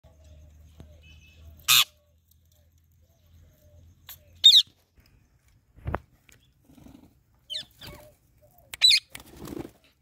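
A flock of parrots, Indian ringneck parakeets among them, giving short, sharp squawks and screeches: three loud calls a few seconds apart, the first a harsh screech, with a few softer calls in between. A dull thump comes about six seconds in.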